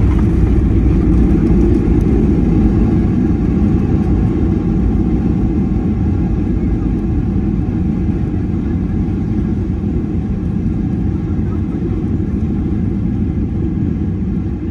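Cabin noise of a Boeing 737-800 decelerating on the runway after touchdown: a steady deep rumble of engines, wheels and airflow, slowly easing off.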